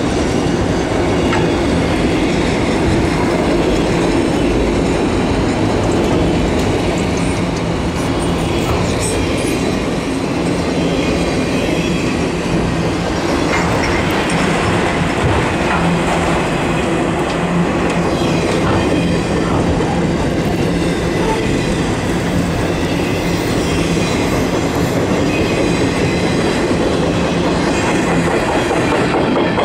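Freight train of autorack cars rolling steadily past at close range, its wheels running over the rails, with a steady low hum underneath.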